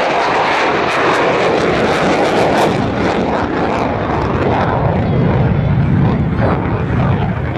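Jet noise from a Royal Netherlands Air Force F-16's Pratt & Whitney F100 turbofan as the fighter flies past in its display: a loud, steady rush that turns deeper in the second half as the jet pulls away.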